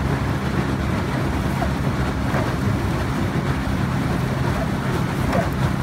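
Small outboard motor of a coaching launch running at a steady speed, a low even hum with rushing noise over it.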